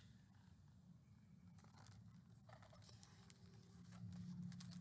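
Near silence, with faint rustling and ticks of a picture book's paper pages being handled, a little louder in the last second or so.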